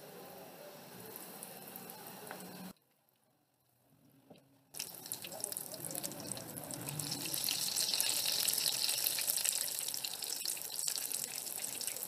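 Breaded potato koftas frying in hot oil in a pan: a crackling sizzle, faint at first, that drops out for about two seconds and then comes back loud and dense with four koftas bubbling in the oil.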